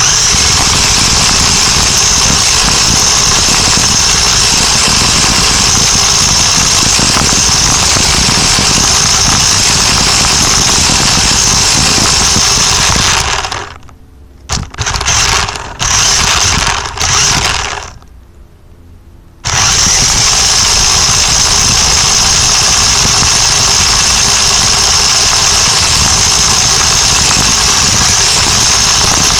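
Radio-controlled truck driving, its motor and gears giving a loud, steady high whine picked up by a phone taped to the truck itself. The motor cuts out briefly about fourteen seconds in, and again for over a second about eighteen seconds in, before the truck drives on.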